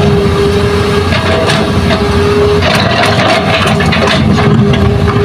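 Hitachi hydraulic excavator's diesel engine running hard while the bucket digs into soil and rock, with a steady high tone that drops out for a second or two midway and returns, and scattered knocks of earth and stones.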